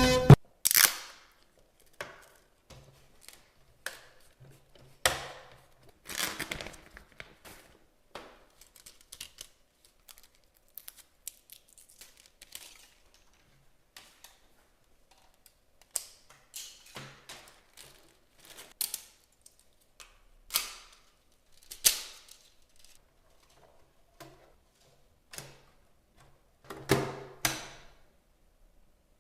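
Cardboard box and packaging being opened and handled: irregular clicks, taps, knocks and short rustles, with a louder run of rustling near the end.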